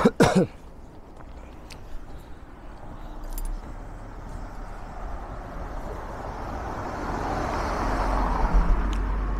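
A car driving up close on a street, its engine rumble and tyre noise growing steadily louder over several seconds and loudest near the end.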